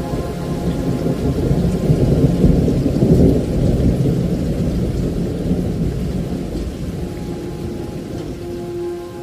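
Heavy rain falling, with a long low rumble of thunder that swells two to three seconds in and slowly dies away.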